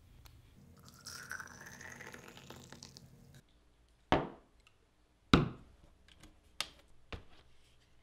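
Water poured into a ceramic mug, its pitch rising as the mug fills, for about two seconds. Then two sharp knocks of the mug set down on a wooden desk, the second the loudest, followed by a few lighter clicks.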